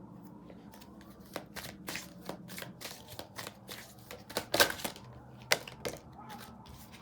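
Tarot cards being shuffled and handled: a run of sharp snaps and slaps of card stock, the loudest about four and a half seconds in.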